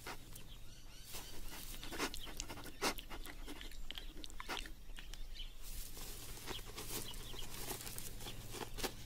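Male red kangaroo sniffing at a female's rear in a run of short, irregular sniffs and snuffles. He is testing her urine to tell whether she is ovulating.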